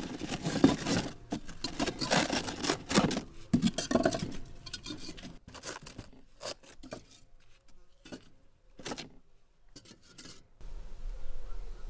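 Cardboard box of charcoal briquettes and its plastic liner being opened and handled: dense crinkling and rustling for about the first five seconds, then sparser crackles and scrapes.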